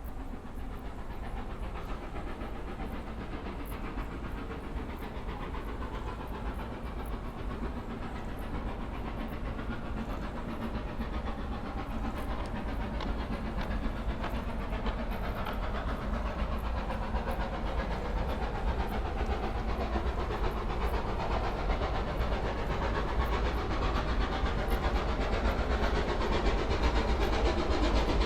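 Steam locomotive approaching, growing steadily louder, with a hiss of steam over a low rumble.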